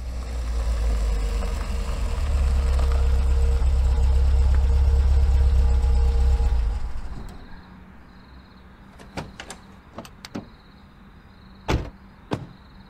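Car rumble, loud and deep for about seven seconds, then fading away. Several sharp clicks and knocks follow over a quiet background with a faint steady high tone.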